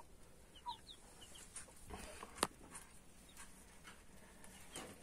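Faint peeping of week-old chicks: short, high, falling cheeps in little runs, with a single sharp click about two and a half seconds in.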